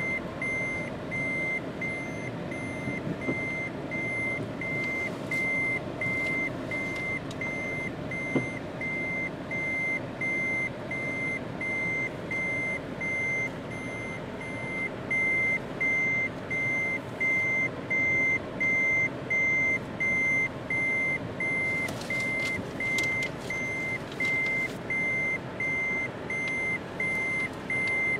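Car's reverse-gear warning beeper sounding a steady high beep a little more than once a second, heard from inside the cabin over the low hum of the vehicle backing up.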